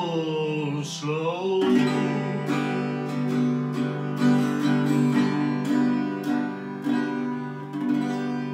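Acoustic guitar strummed under a man's long held sung note, which ends about a second and a half in. The Fender acoustic guitar then plays the outro alone in slow strums and rings out, fading near the end.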